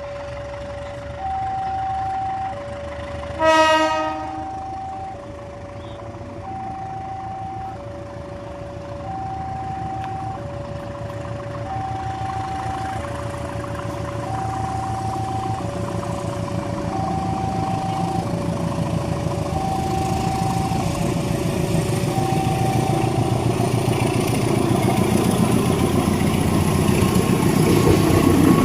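Railway level-crossing alarm sounding an alternating two-tone warning, with one short train horn blast about three and a half seconds in. A train's rumble grows steadily louder as it approaches; the alarm stops a few seconds before the end.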